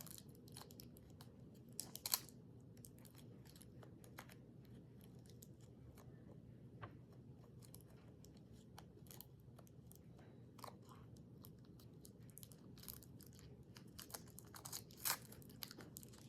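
Faint scattered clicks and light rustles of small objects and packaging being handled, over quiet room tone, with a couple of sharper clicks about two seconds in and near the end.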